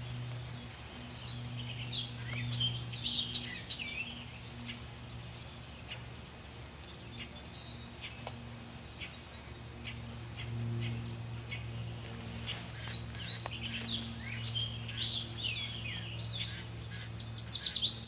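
Small songbirds chirping and calling in short, high-pitched notes, in scattered clusters, ending in a loud burst of rapid high chirps.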